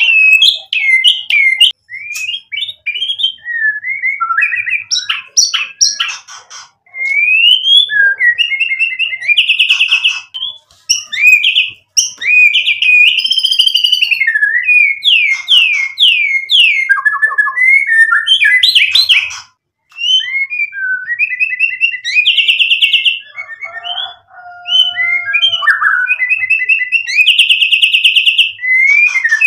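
Male white-rumped shama singing in full song. It runs through varied clear whistles, quick rising and falling glides and fast rattling trills, with brief pauses between phrases, as it works through its repertoire of mimicked phrases.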